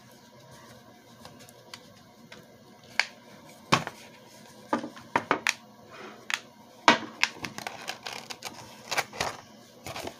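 Irregular light clicks and knocks of a wooden shadow box frame with a glass front being handled and taken apart by hand, the sharpest about four and seven seconds in.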